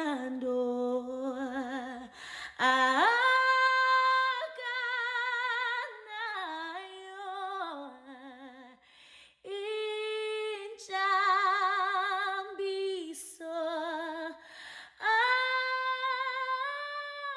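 A woman singing solo without accompaniment in a slow, unhurried melody, holding long notes with vibrato in phrases broken by short breaths; the sung words include "unothando" ("has love").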